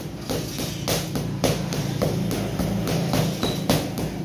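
Boxing gloves smacking into focus mitts in quick combinations, about a dozen sharp hits, over a steady low hum.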